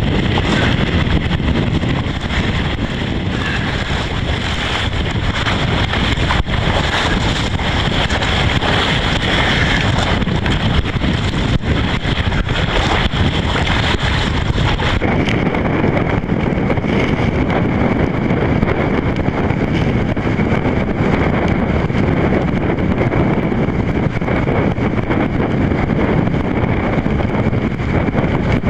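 Strong wind buffeting the microphone, a loud steady rumble, over rough water around a kayak. About halfway through the hiss shifts in tone.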